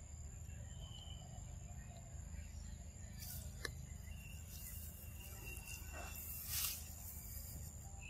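Grass and leaves rustling in short spells as a baby macaque pushes into the undergrowth, loudest about six and a half seconds in, with a sharp click just after three and a half seconds. A steady high insect whine and a low rumble run underneath.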